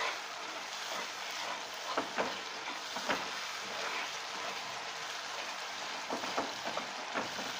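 Spice paste of masala, chutney and sugar sizzling in oil in a non-stick pan while a wooden spatula stirs it. Several short scraping strokes of the spatula against the pan stand out over the steady sizzle.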